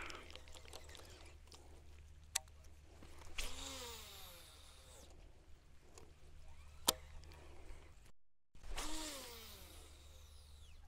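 Fishing casts with a lure rod, twice: a sharp click, then a swish and the whir of line paying off the reel, falling in pitch as the spool slows.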